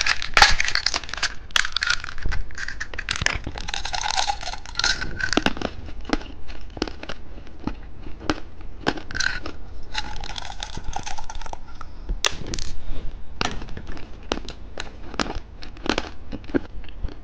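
Plastic candy packaging crinkling and crackling as it is handled and opened, with scattered sharp clicks of plastic.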